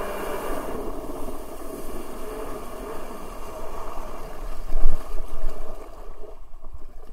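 Water rushing and wind buffeting a camera mounted on an electric jet surfboard as it slows on a pond. The jet drive's whine fades within the first second, and a loud thump of water comes about five seconds in as the board swings round.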